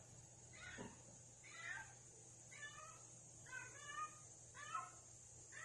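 Female cat in heat calling: a string of short, faint meows, about one a second.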